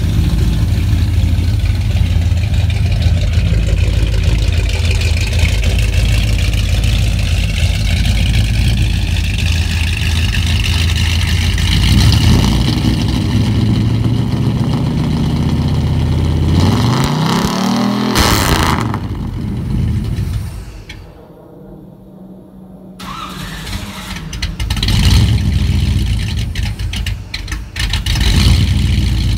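454 big-block Chevy V8 running through SpinTech Pro Street mufflers: a steady idle, then a throttle blip about two-thirds of the way through that rises and falls. The sound drops away for a couple of seconds, then more short revs follow near the end.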